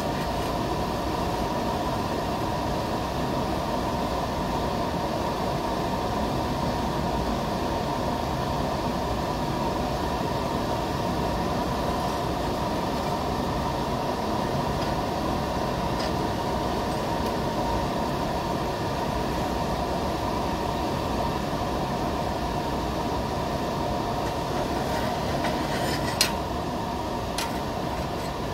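Steady mechanical drone of workshop machinery: an even hum with a faint steady whine. A single sharp click sounds near the end.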